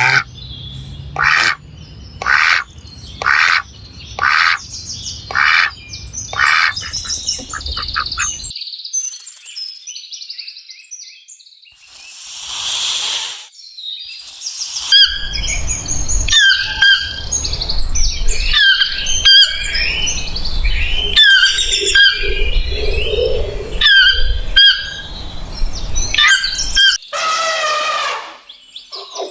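Birds calling: first a run of short calls repeated at an even pace, then a brief burst of hiss-like noise, then many birds chirping together, busy and overlapping.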